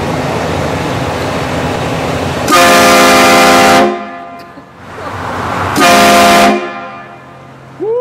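Truck-mounted HornBlasters air train horn sounding two loud blasts of several notes at once, the first about a second and a half long and the second shorter, over the noise of the approaching pickup.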